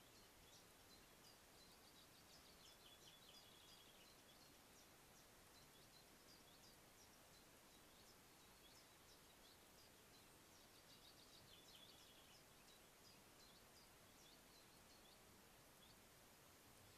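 Near silence: a faint steady hiss with faint songbird calls, short high chirps scattered throughout and a quick trill twice, about three seconds in and again about eleven seconds in.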